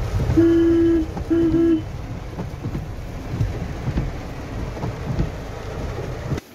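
Rain falling on a moving car, heard from inside the cabin as a steady rumble and hiss. A car horn beeps twice in the first two seconds.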